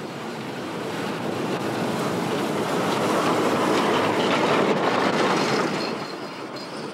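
A 750 mm narrow-gauge passenger train rolling slowly into a station, its carriage wheels rattling over the rails as the coaches pass close by. It grows louder to a peak and then eases off, with a faint high wheel squeal near the end as it slows.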